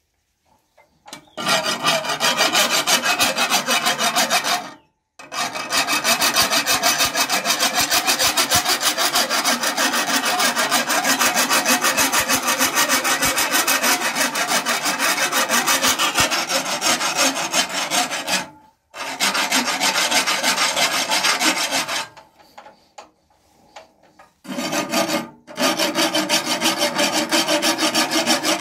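Metal tool scraping against the cutting blades on a chaff cutter's flywheel, as in sharpening the blades: a steady, fast, even rasping that breaks off briefly three times.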